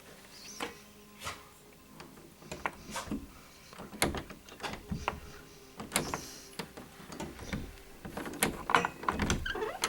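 Irregular knocks and clicks of someone moving about and handling things, a dozen or more, thickest and loudest near the end.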